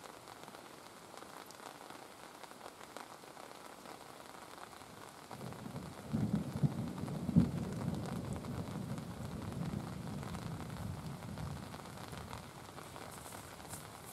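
Steady rain hissing, and about five seconds in a low rumble rises and lasts about six seconds, with one sharp peak partway through.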